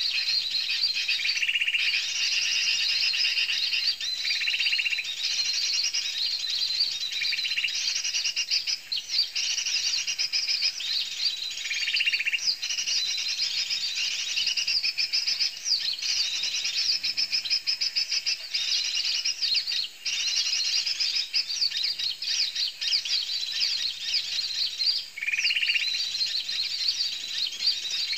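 Dense, unbroken chirping and twittering of many small birds, with a lower, rougher call recurring every few seconds.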